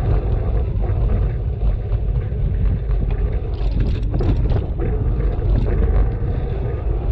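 Wind rumbling on the microphone of a bike-mounted camera while riding, mixed with tyre and road noise. About three and a half seconds in, a brief louder hiss rises above the steady rumble for about a second.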